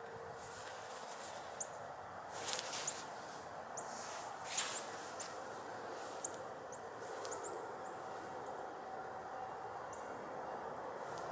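Outdoor ambience between siren blasts: a steady distant hiss with a bird's short, high chirps repeating every second or so. A faint steady tone from distant sirens fades away near the start and comes back briefly about two-thirds through, and a couple of brief rustles are heard, the louder one about four and a half seconds in.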